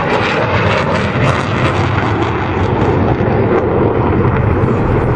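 Loud, steady jet noise from two Panavia Tornado jets and their RB199 turbofan engines in a display flypast.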